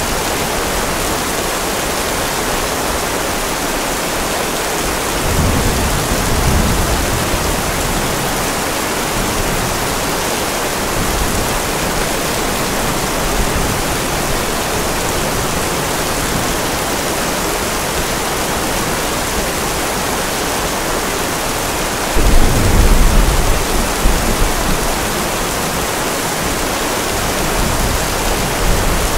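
Steady rain with thunder. A low rumble of thunder swells about five seconds in, and a louder one starts suddenly about two-thirds of the way through and rolls on for a few seconds.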